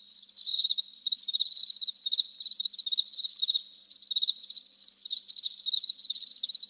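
Crickets chirping steadily in quick, high-pitched pulses, the stock 'crickets' sound effect for an awkward silence after a joke falls flat.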